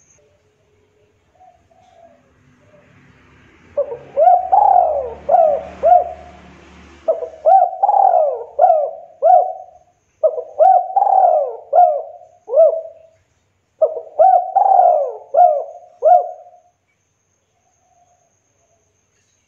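Spotted dove (tekukur) cooing in four phrases. Each phrase has about four coos, the second drawn out longer, and each coo swoops up and falls back. Short pauses separate the phrases, and the calling stops a couple of seconds before the end.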